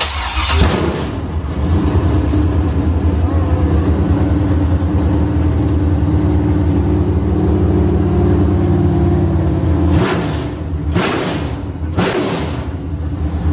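Chevrolet Camaro with a swapped-in 5.3-litre V8, long-tube headers and a stage three cam, firing up and running loud at a steady idle. It is then blipped three times, about a second apart, near the end.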